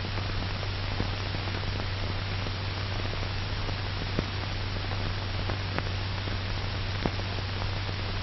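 Old film soundtrack noise: steady hiss with a low hum, and a few faint clicks and pops scattered through it.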